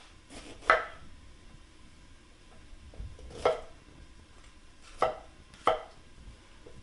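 Chef's knife cutting a green bell pepper on a wooden cutting board: four separate sharp knocks of the blade striking the board, spread out, two of them close together near the end.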